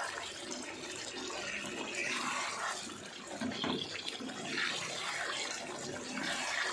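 Wooden spatula stirring chicken and potato pieces in a pan of thin, watery yogurt gravy: wet sloshing and scraping that comes in repeated strokes about every second or so.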